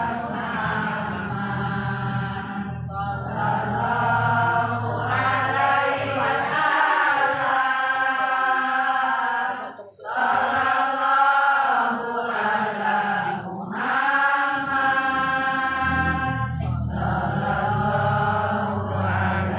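Several voices singing a devotional chant together in long held phrases, with short breaks between phrases and a low hum underneath in places.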